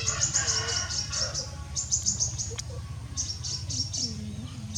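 Small birds chirping: quick runs of short, high-pitched chirps, three runs in a row with short pauses between them, over a steady low hum.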